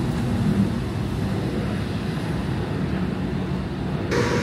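Steady low outdoor rumble with a faint steady hum, from passing road traffic and the fast charger's equipment. The sound shifts abruptly near the end.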